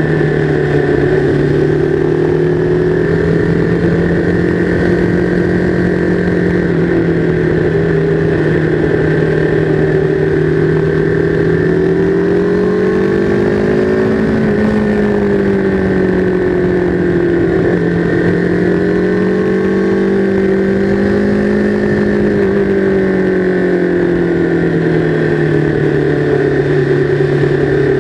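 Sport bike's engine pulling hard in third gear, with revs that rise and fall gently through the bends and never shift gear. A steady rush of wind noise runs underneath.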